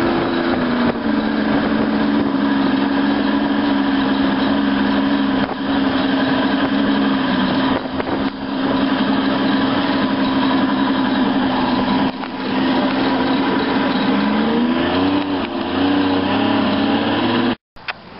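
Motorboat's outboard engine running steadily at speed under a constant rush of wind and water. Its pitch climbs about fifteen seconds in, and the sound cuts off abruptly near the end.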